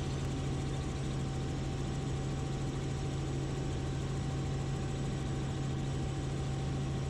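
Robinson R44 Raven II helicopter in level cruise: its Lycoming six-cylinder engine and rotors make a steady, unchanging drone, heard inside the cabin, with a deep hum and a faint high tone over it.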